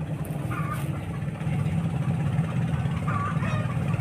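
A small engine running steadily at idle, a constant low hum.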